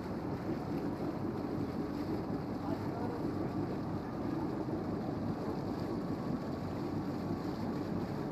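Steady low drone of a departing passenger ship's engines, carried across the harbour water.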